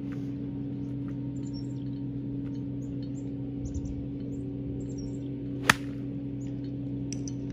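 A 5-iron strike on a golf ball, one sharp crack a little past halfway: a chunked shot, the club digging into the turf behind the ball. Birds chirp throughout over a steady low hum.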